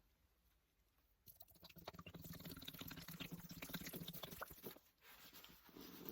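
Sponge soaked in elephant toothpaste foam being squeezed: wet squelching with dense, fine crackling, starting about a second in, pausing briefly near five seconds, then resuming.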